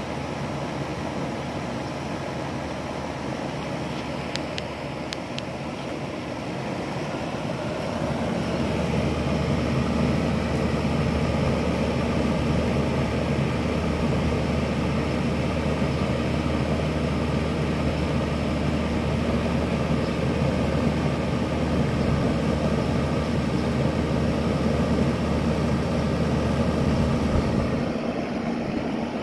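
A compressor running under steady machine noise: about eight seconds in it kicks on with a steady low hum, then cuts out near the end. The compressor is one its owner calls bad.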